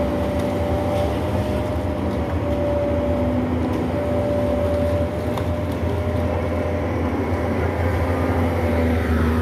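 Doosan crawler excavator's diesel engine running steadily under load as the boom lifts and the machine swings, with a steady high tone sounding over the low engine rumble.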